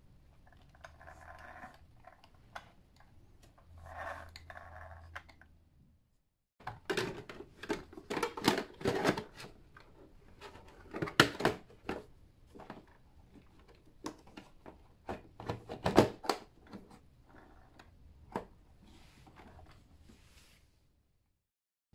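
Hard plastic clicks and knocks from an RC truck's plastic body shell being handled and pressed onto its chassis. The sharp clicks come in a dense run through the middle, and the loudest snaps land in two spots, with quieter handling noise before and after.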